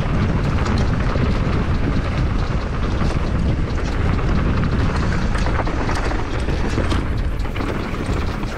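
Downhill mountain bike ridden fast over rough, rocky trail: heavy wind rumble on the action camera's microphone, with constant rattling and clacking of the bike and tyres over rocks. The noise eases off shortly before the end as the bike slows.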